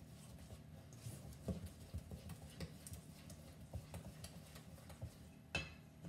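Spatula stirring a lumpy wet cookie batter in a stainless steel bowl: soft, irregular taps and knocks of the spatula against the metal, a few a second, with one slightly louder knock near the end.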